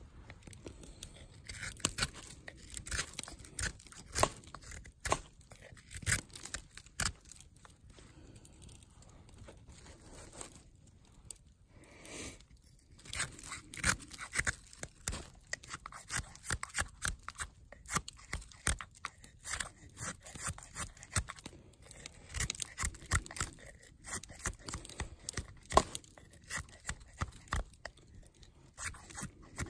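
Carving knife whittling a wooden spoon: a long run of short, irregular shaving cuts and scrapes, thinning out for a few seconds about a third of the way in.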